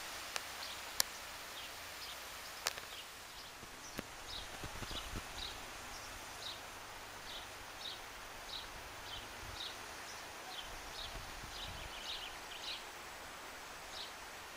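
Wind hissing steadily through foliage, with a bird repeating short high chirps roughly every half second to second. A few sharp clicks stand out in the first four seconds.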